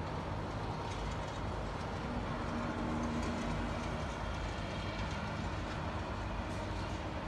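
Steady city traffic noise with a low rumble and an even hiss, and a faint hum for a second or two about halfway through.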